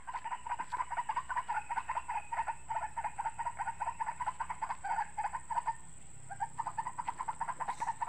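White-breasted waterhen (ruak-ruak) call played through a small speaker as a hunting lure: a fast, even string of repeated notes that stops briefly about six seconds in, then starts again.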